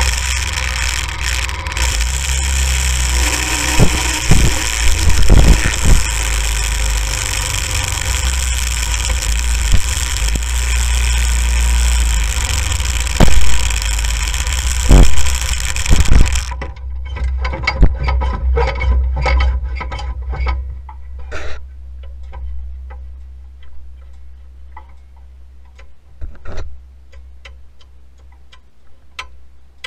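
Go-kart engine running under way on snow, with a heavy low rumble and occasional knocks. About halfway through the engine noise drops off suddenly, leaving a low rumble and scattered clicks and ticks that fade near the end.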